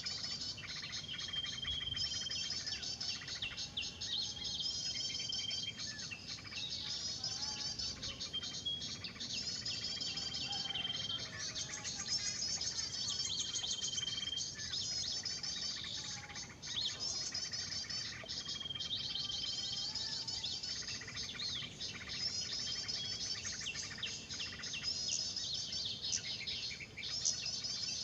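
Bird-lure recording of small songbirds' alarm chatter played through a speaker, used to draw small birds down to lime-smeared twigs. Rapid high chattering comes in repeating bursts, with a short steady high whistle recurring every few seconds, like a looped track.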